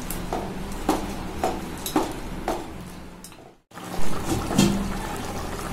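A metal spoon stirring thick chicken gravy in a kadai, knocking against the pan about every half second. After a sudden break, the gravy bubbles as it boils.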